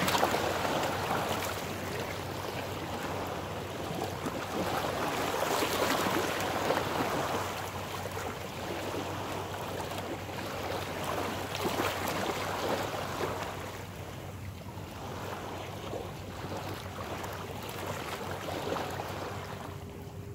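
Small waves lapping and washing against shoreline rocks, an uneven rushing wash that swells and eases, a little louder for the first several seconds.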